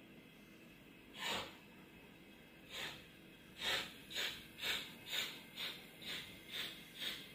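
Sound decoder of a Roco FS Gr.880 steam tank locomotive model playing steam exhaust chuffs as the engine pulls away. There is a single chuff about a second in and another near three seconds, then the chuffs quicken to about two a second as it gathers speed.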